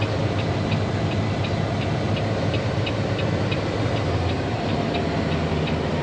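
Semi truck's diesel engine idling, heard from inside the cab, with a regular light ticking about three times a second that stops about four seconds in.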